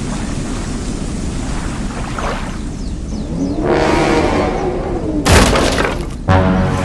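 Thunder rumbling in a storm, swelling midway, with a sharp thunderclap a little over five seconds in.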